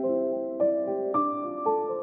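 Background music: soft keyboard notes held and overlapping, with a new note coming in about every half second.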